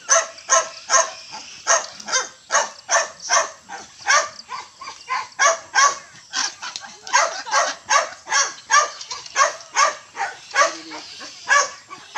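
Small dog barking rapidly and without a break, about two or three sharp barks a second, while a duck confronts it.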